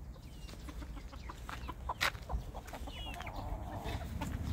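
Silkie chickens clucking quietly, with a few short high chirps and scattered clicks, one sharp click about two seconds in.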